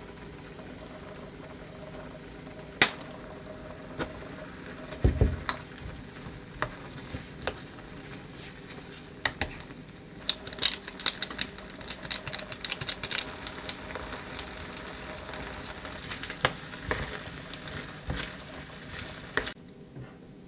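Milk risotto simmering in a stainless steel frying pan, with a wooden spoon scraping and tapping against the pan as it is stirred; the stirring is busiest in the second half. A few sharp knocks and a dull thump come in the first few seconds.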